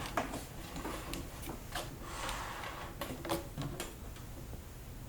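Handling noises on a turntable: a string of small irregular clicks and light knocks, about eight spread over the few seconds.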